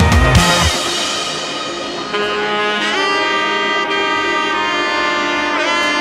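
Background music: a heavy drum beat cuts off under a second in, then held, sustained notes carry on.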